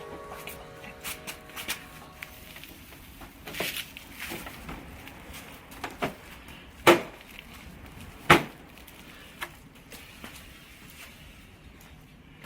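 Background music fades out near the start, then a few scattered sharp knocks and clicks, the two loudest about seven and eight seconds in.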